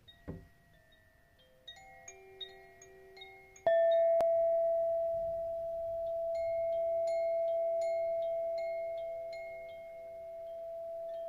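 Rock-crystal sound instruments played for a sound meditation. Soft, high chime notes ring at first. About a third of the way in, a crystal is struck and a long, sustained ringing tone swells and fades, with light high pings above it.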